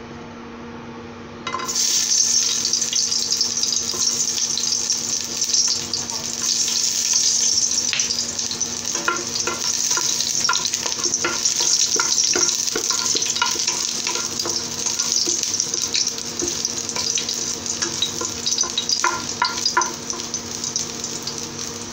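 Chopped garlic sizzling in hot oil in a pot, the sizzle starting suddenly about a second and a half in as the garlic hits the oil. A wooden spoon clicks and scrapes against the pot as the garlic is stirred.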